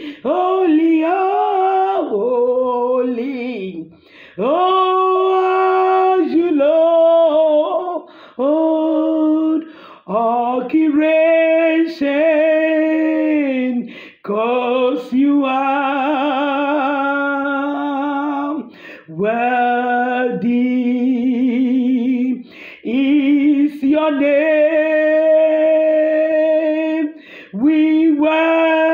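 A woman singing a slow worship song of praise, in long phrases with held notes and vibrato and short breaks between them.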